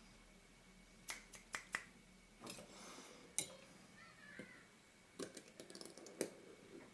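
Faint, scattered sharp clicks and taps of small metal parts of a Carl Zeiss 45 mm f/2.8 lens being handled and fitted during reassembly, with a quick cluster of clicks near the end.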